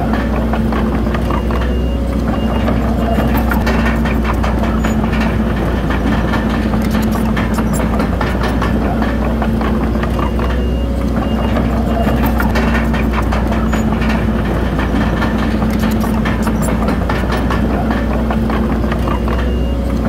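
Komatsu D31PX bulldozer working, its diesel engine running steadily under a constant clatter of the steel tracks. A reversing alarm beeps in two short spells, about two seconds in and about ten seconds in.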